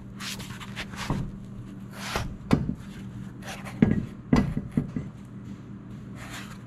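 Knocks and scrapes of a mud-tyred wheel being lifted and worked onto the hub studs of a Kawasaki Mule Pro FXT side-by-side, with several sharp knocks from about two to five seconds in. A steady low hum runs underneath.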